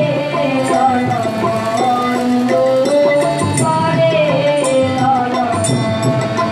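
A girl's voice singing a Bengali song with harmonium accompaniment, a tabla playing underneath and small hand cymbals ticking in a regular beat.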